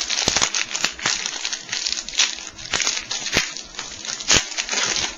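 Foil trading-card pack wrapper being torn open and crinkled: a steady run of sharp crackling rustles.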